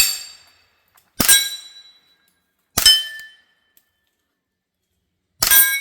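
Four suppressed 9mm shots from a CZ Scorpion Evo carbine fitted with a Dead Air Mojave 9 suppressor, fired at an uneven pace. Each shot is a sharp crack followed by a short metallic ring.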